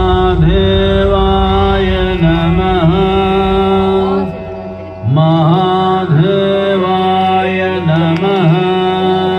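Indian devotional chant sung in long held notes with ornamented bends, over a steady low drone. It breaks off briefly about four and a half seconds in, then resumes.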